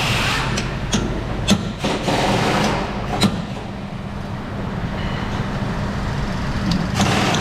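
Workshop noise: a steady low mechanical hum that settles in about two seconds in, with a few sharp clicks and knocks over the first few seconds and a hiss at the start and near the end.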